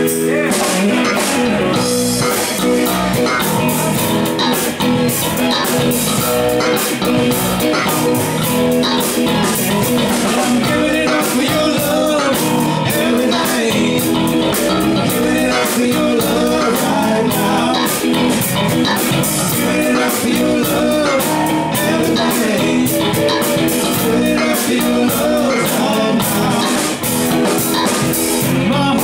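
Live band playing a song on electric guitars and a drum kit. The drums come in right at the start.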